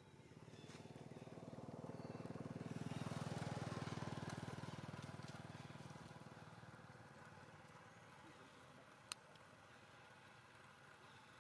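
A motor vehicle's engine passing at a distance, swelling to a peak about three seconds in and then fading away. A single sharp click comes near the end.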